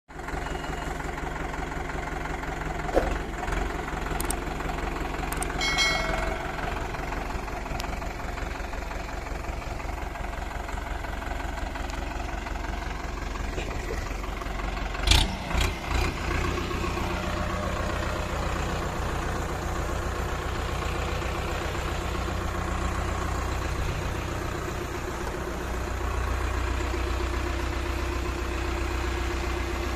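Powertrac Euro 55 tractor's diesel engine running steadily at low speed. A few sharp clunks cut through it, the loudest about fifteen seconds in.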